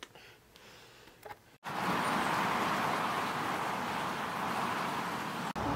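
Faint room tone, then an abrupt change about a second and a half in to a steady, even rushing noise outdoors that holds level with no rhythm or pitch.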